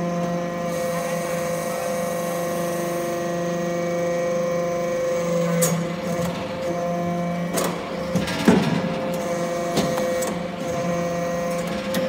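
XB315 hydraulic briquetting press for aluminium chips running with a steady hum from its hydraulic pump. In the second half come a few clunks and metallic clatters, the loudest about eight and a half seconds in, as the press cycles and pushes out a briquette.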